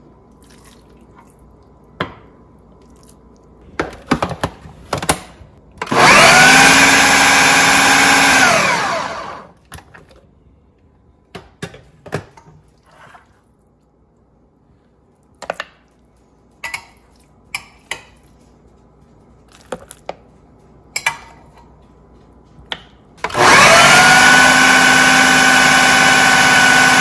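Food processor grinding raw chicken mince with spices and herbs into kofta paste. The motor runs steadily for about three seconds and winds down. Scattered clicks and knocks of the bowl and lid follow, then the motor starts again near the end and keeps running.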